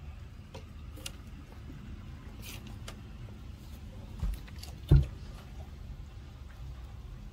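A puppy eating vegetables from a plate: scattered small clicks of chewing and mouth sounds, with two dull thumps about four and five seconds in, the second the loudest, over a steady low rumble.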